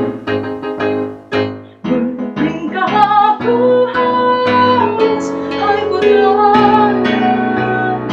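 Piano accompaniment playing repeated chords, joined about two seconds in by a young woman singing a melody over it.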